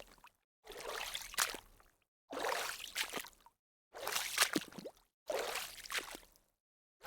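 Water splashing in four separate bursts, each about a second long with sharp slaps and sloshes, separated by short gaps of dead silence.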